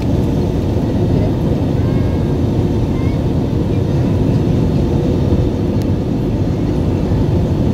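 Steady jet airliner cabin noise from a window seat over the wing: the engines and airflow running as a deep, even rush during the descent on approach to landing.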